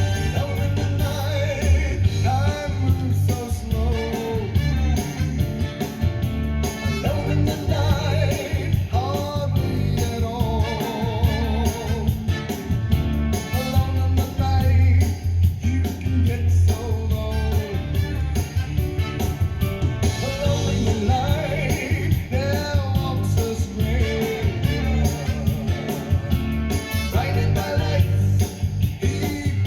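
Background music: a rock song with a sung vocal, guitar and a steady heavy bass line.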